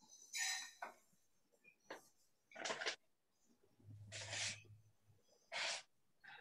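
Four short, faint noises from open microphones on a video call, each cutting in and out abruptly. A low hum sits under the third one.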